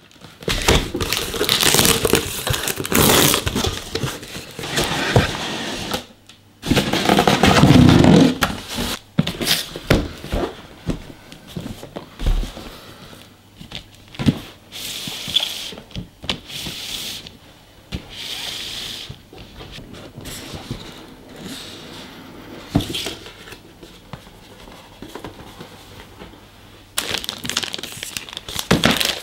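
Cardboard packaging being handled and opened: boxes and lids scraping and sliding, paper and card rustling and crinkling, with scattered small knocks.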